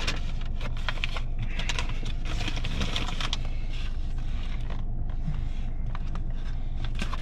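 Paper fast-food bags being handled, crinkling and rustling, busiest in the first few seconds and sparser after. A steady low hum runs underneath.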